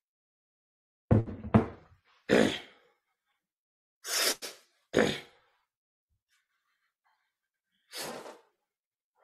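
A person coughing and sniffing: about six short, noisy bursts, three close together in the first few seconds, two more a couple of seconds later and a last one near the end.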